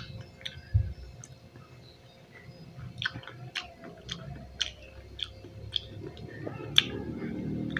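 A person chewing fresh pineapple chunks close to the microphone: sharp, wet mouth clicks about twice a second, starting about three seconds in.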